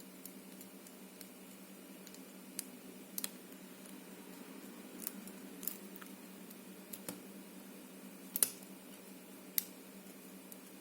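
Scattered small metallic clicks and taps of a hook pick working the pins of an ABUS 72/40 brass padlock under tension, about eight irregular clicks over a faint steady hum.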